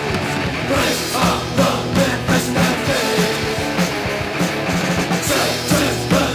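Oi punk rock song playing from a vinyl LP: full band with drums keeping a steady, regular beat.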